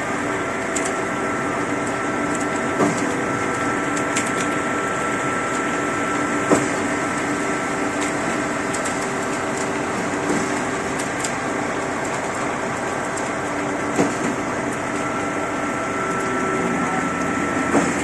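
Concrete pump truck and mixer machinery running steadily with a held whine, and a short clunk about every three to four seconds.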